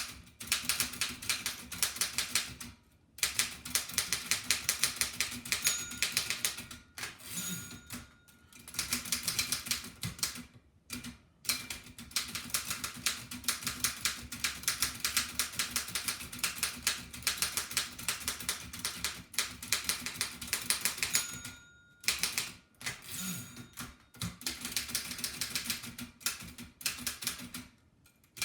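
1894 Densmore No. 1 typewriter being typed on fast: rapid runs of clacking keystrokes, broken by several short pauses.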